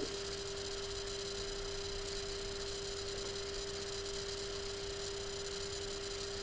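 Steady electrical hum, a single unchanging tone over a faint hiss.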